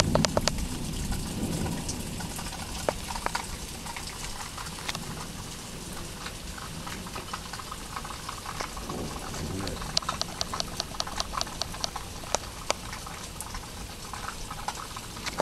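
Steady rain with drops pattering and dripping in irregular sharp ticks, which come thicker for a couple of seconds about ten seconds in.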